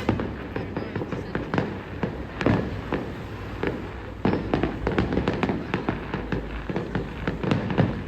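Fireworks display going off: a rapid series of sharp bangs and crackles that grows denser about four seconds in.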